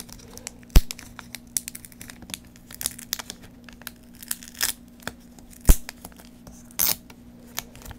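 Adhesive tape being peeled by fingertips off a laptop LCD's ribbon-cable connector: a run of small crackles and sticky tearing rasps, with two sharp clicks about a second in and near six seconds.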